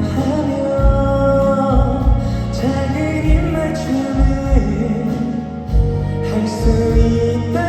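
Live pop ballad music: full band accompaniment with a repeated low drum beat under a held melody line that bends and slides between notes.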